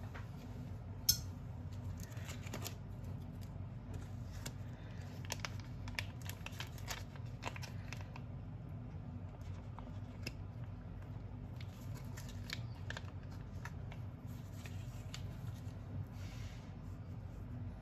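Plastic packet of sliced meat being handled and cut open out of view: scattered snips, clicks and crinkles with a sharp click about a second in, over a low steady hum.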